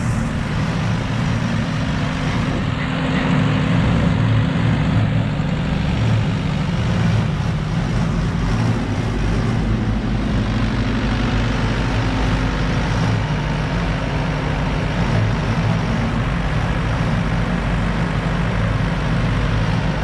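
Diesel engine of a JCB loader running steadily as it works, loading silage into a tractor-drawn feed mixer wagon.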